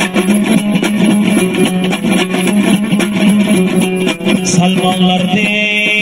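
A dambura, the two-stringed Afghan long-necked lute, strummed fast and evenly over a steady low drone string. Near the end a man's voice comes in on a long held note.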